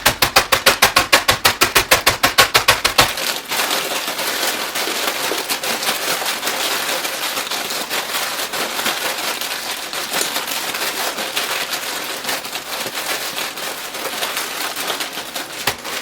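A bag of chips being crushed by hand: fast, regular crinkling strokes, about seven a second, for the first three seconds, then continuous crackling and crunching of the plastic bag and the chips breaking inside it.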